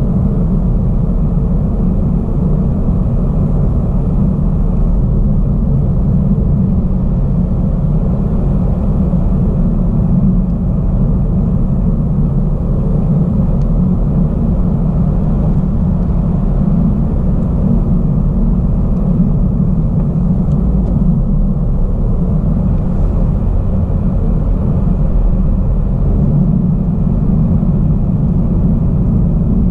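Car driving at a steady cruising speed, heard from inside the cabin: a steady low rumble of tyre, road and engine noise.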